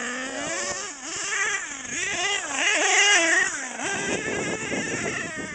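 HPI Savage XL's K5.9 big-block nitro engine revving up and down as the RC monster truck drives. Its high whine rises and falls repeatedly for about four seconds, then gives way to a rougher, noisier sound.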